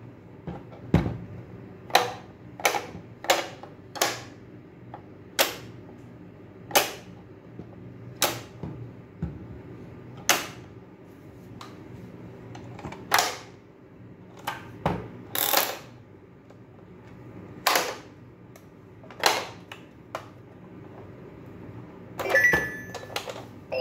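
Sharp plastic clicks and snaps from a children's pop-up animal toy being handled and its buttons and spring-loaded lids worked, coming irregularly about one every second or two.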